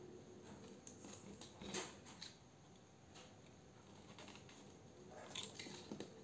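Near silence with a few faint clicks and rustles: hands handling a cordless driver and the wire leads of its battery adapter. There is one click about two seconds in and a couple near the end, and the motor is not running.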